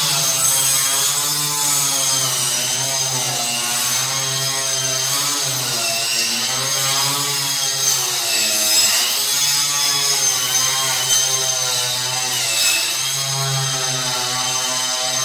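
Electric power tool motor running continuously under varying load, its pitch wavering up and down every second or so with a high whine over it.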